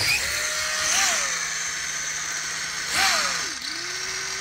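Brushless electric motor of a Losi Mini-T 2.0 1/18 RC stadium truck whining as it revs up and drops back twice, about a second in and about three seconds in, then holding a steady lower whine. The truck is running away on its own without throttle input.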